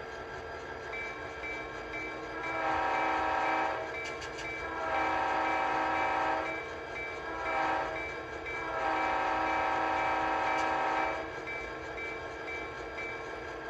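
An HO scale model diesel locomotive's Tsunami 2 DCC sound decoder playing through its upgraded speaker. The chime horn sounds the long-long-short-long grade-crossing signal over a steadily ringing locomotive bell and the running diesel engine.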